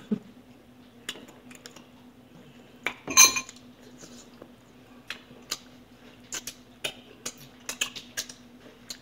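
Cutlery clinking and scraping against a dish of food: scattered light clicks, a louder clatter about three seconds in, and a quicker run of clinks in the second half.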